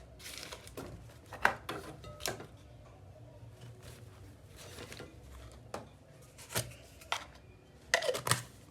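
Groceries being handled and set down: several short knocks and clicks with some rustling, over a low steady hum.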